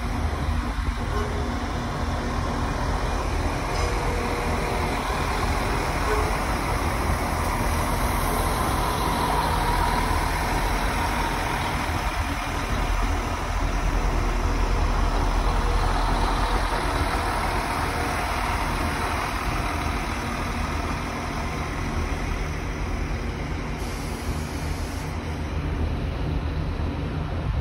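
Irish Rail 22000 Class diesel railcars running at a station: a steady diesel rumble with a train rolling past on the tracks, a little louder around the middle.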